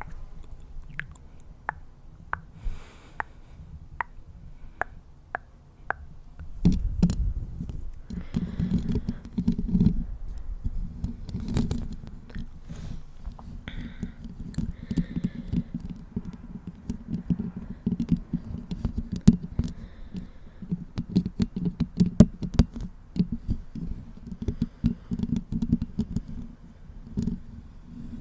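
Close-miked ASMR triggers: light taps, about two a second, for roughly the first six seconds, then fingers scratching and rubbing directly on the microphone, a dense low rumble with crackles and clicks.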